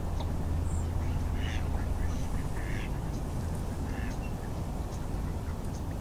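Ducks on a lake calling, a few short separate quacks spread over the seconds, over a steady low rumble.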